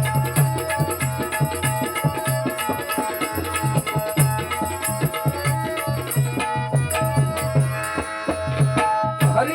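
Devotional bhajan accompaniment without singing: a hand drum of the tabla/dholki kind plays a quick, even beat of about three to four low strokes a second, under steady held melody tones.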